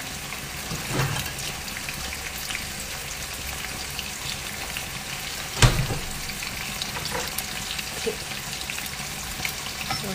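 Beef pieces frying in hot oil in a pan, a steady sizzle, with one sharp knock a little past halfway.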